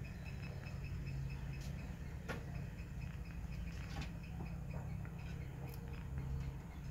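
Rabbit nibbling and chewing a whole beetroot held in a hand: small, irregular crunching clicks of its teeth on the root, over a steady low hum.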